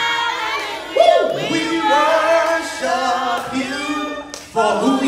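A man singing a worship song into a microphone, some notes held and others sliding.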